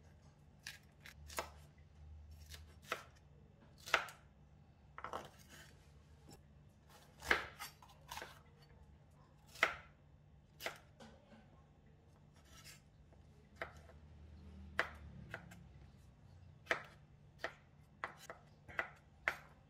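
Large kitchen knife chopping bell peppers into squares on a wooden chopping board: irregular sharp knocks of the blade striking the board, roughly one a second, coming faster near the end.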